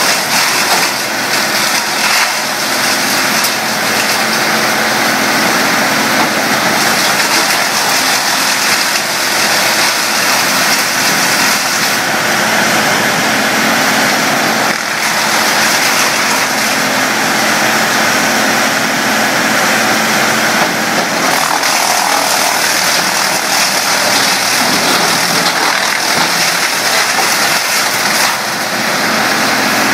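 Bandit wood chipper running at full speed: a loud, steady engine and cutter drone with no change in pitch, and little or no wood being fed through.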